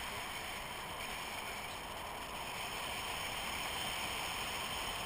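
Steady wind noise from the airflow over a GoPro camera in flight under a tandem paraglider: an even rush with no breaks.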